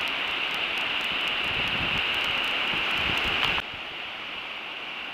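Steady rushing noise of sea surf washing up on a sandy beach, mixed with wind hiss on the microphone. About three and a half seconds in it drops suddenly to a quieter level.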